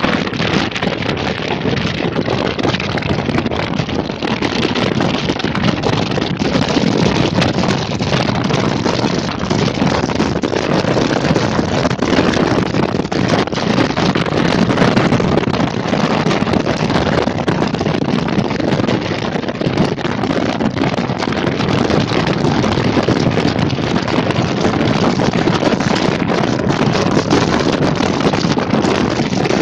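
Wind rushing and buffeting over the microphone of a moving vehicle, a steady loud rush with constant small flutters and no clear engine tone.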